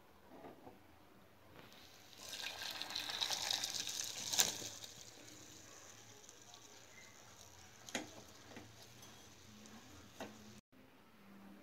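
Boiled potato fingers and their hot water poured from a steel pot into a mesh strainer: a splashing gush lasting about two and a half seconds, with a sharp knock near its end. Two light knocks follow later.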